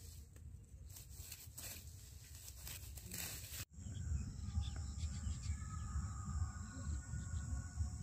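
Amaranth plants being cut with scissors: a run of short crisp snips and rustles. After a sudden cut about halfway through, outdoor ambience takes over: a steady high insect drone, wind rumbling on the microphone and faint bird calls.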